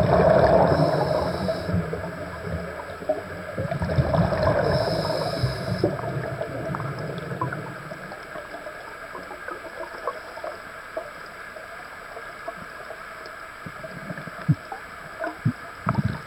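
Scuba breathing heard underwater: two rounds of bubbling, gurgling rumble from the diver's regulator and exhaled air in the first half, then a quieter stretch with scattered small clicks.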